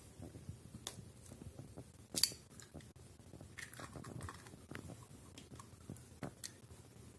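Hen's eggs being cracked by hand into a glass bowl: faint taps and shell crackles, with one sharper crack about two seconds in.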